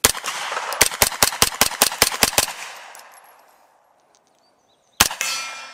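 Rapid fire from a JP Enterprises GMR-15 9mm pistol-caliber carbine: a single shot, then a quick string of about a dozen shots at roughly five a second, each with a short echo. The fast string shows off the trigger's quick reset. One more shot comes about five seconds in.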